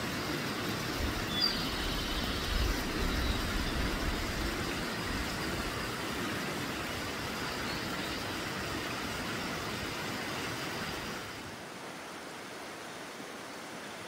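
Small waterfall of modest flow: water falling and splashing on rock, a steady rushing hiss with some low rumble in the first few seconds. It drops to a quieter level about eleven seconds in.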